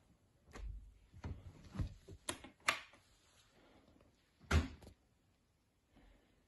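A LIXIL window's latch handle being turned and the sash moved: a run of sharp clicks and knocks, then one louder thud about four and a half seconds in.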